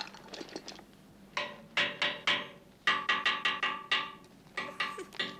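Film soundtrack music: a light tune of short pitched notes, each struck and quickly fading, coming in groups and starting about a second and a half in. Before it, only faint clicks and rustles.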